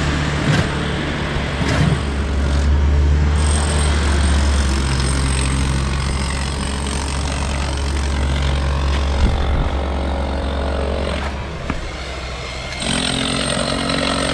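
A vehicle engine running steadily with a low hum, its tone shifting a couple of times.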